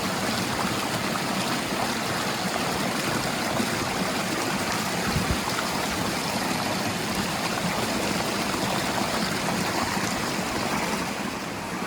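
Steady rush of stream water pouring over rocks at the top of a small waterfall.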